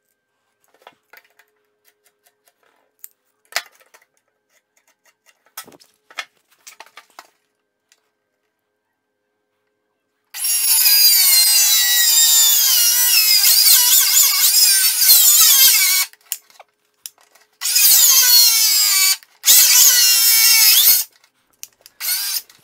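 Circular saw cutting pressure-treated timber cleats with a 45-degree bevel, its motor whining as the blade goes through the wood. It starts about ten seconds in with one long cut, followed by two shorter cuts and a brief burst near the end. Before it there are only faint knocks of the timber being handled.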